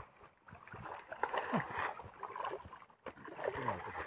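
Hands sloshing and scooping in shallow muddy pond water and mud, small splashes coming in uneven spells.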